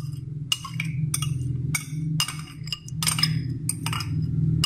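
Metal spoon clinking and scraping against a bowl as a chopped vegetable and bean salad is tossed, about three sharp irregular clinks a second over a steady low hum.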